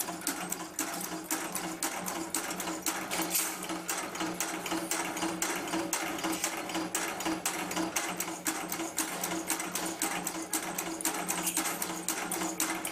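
Automatic packing-clip making machine running: a rapid, regular clatter of clicks over a steady motor hum.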